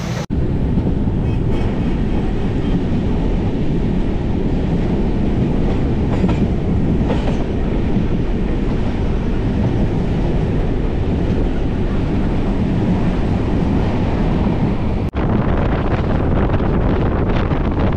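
Passenger train running at speed: a steady rumble of the coaches' wheels on the rails. A little after the middle the sound cuts and turns hissier, with more rushing air.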